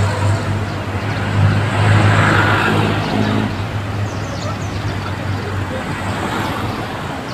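Street traffic: a steady low engine hum, swelling as a vehicle passes about two seconds in.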